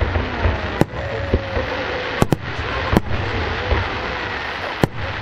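Fireworks display: about five sharp bangs of shells bursting, two in quick succession a little past two seconds in, over a steady low rumble and hiss.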